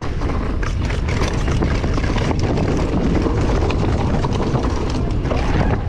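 Vitus Sommet mountain bike descending a dirt trail at speed: steady wind rush and rumble over the microphone, tyres rolling over the dirt, and a stream of small rattles and knocks from the bike.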